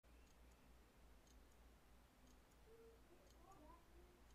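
Near silence: faint room tone with soft clicks about once a second.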